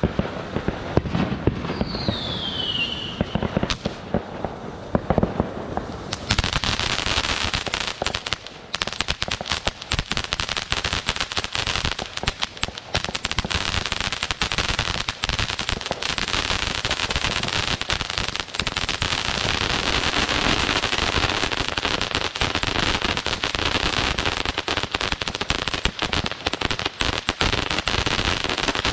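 Ground firework fountains spraying sparks: a steady high hiss with dense crackling, and a short falling whistle about two seconds in. The crackling gets thicker and louder from about six seconds in.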